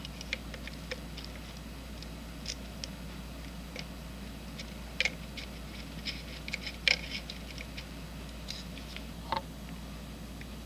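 Scattered light clicks and metal taps of parts being handled as the light assembly is fitted back onto a Zeiss SL120 slit lamp and its Allen screws are set in by hand; the sharpest clicks come about halfway through and again about two-thirds in, over a steady low hum.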